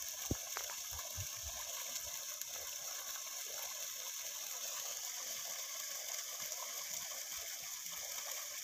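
Water gushing steadily from the outlet pipe of a solar-powered DC tubewell pump, with a light knock near the start.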